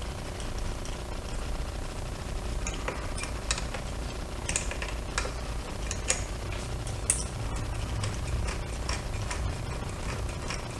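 Scattered light metallic clicks and ticks of a 10 mm open-end wrench working the throttle cable adjuster nuts on a motorcycle throttle body, loosening the cables, over a low steady background hum.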